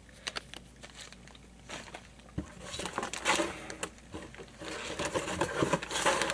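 Plastic zip bags of soft-plastic fishing lures rustling and crinkling as they are handled, with scattered clicks and taps. The rustling picks up about two seconds in.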